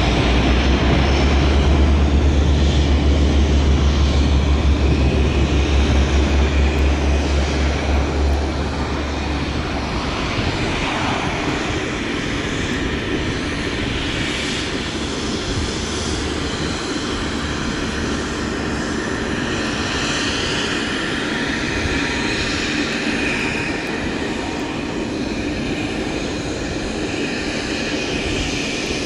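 De Havilland Canada Dash 8 twin-turboprop taking off at full power. A deep propeller drone is loudest for the first eight seconds or so as it rolls past, then gives way to a steadier, broader engine sound that recedes as it lifts off and climbs away.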